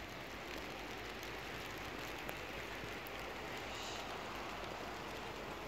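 Steady, even hiss of outdoor street ambience, with one faint click about two seconds in.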